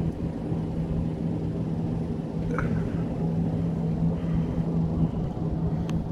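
A steady low rumble with a constant hum, with a single sharp click near the end.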